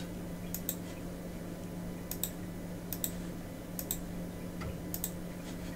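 Computer mouse clicking: about five pairs of short clicks, roughly a second apart, over a steady low hum.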